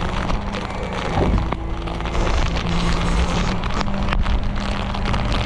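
Rollback tow truck's engine running steadily at raised idle to drive the PTO hydraulics, a constant low hum, with rain and wind noise on the microphone and a few scattered clicks.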